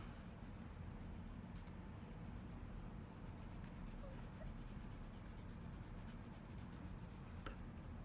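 Colour pencil scratching on paper as leaves are drawn and coloured in, over a steady low hum.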